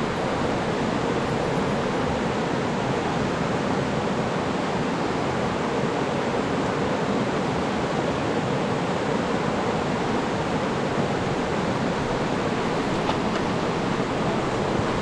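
Fast-flowing river in flood rushing past, a steady, unbroken roar of water.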